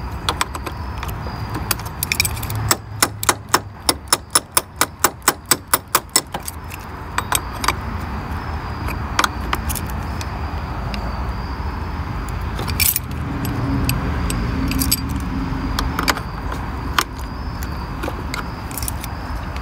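Wrench and battery cable clamp clinking on the battery terminal as the cable is refitted and tightened. A few seconds in comes a quick run of about twenty even clicks, about six a second, followed by scattered single metal clinks.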